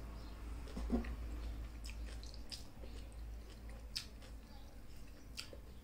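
Close-up chewing and mouth sounds of a person eating rice and mutton with her fingers, with a few sharp clicks at intervals, the loudest about a second in.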